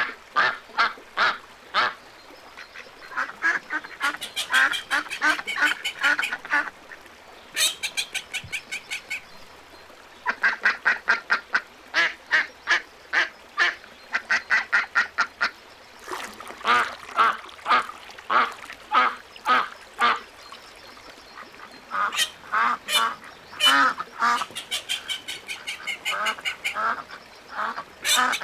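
Ducks quacking in repeated bouts of short calls, about two or three a second, with brief pauses between the runs.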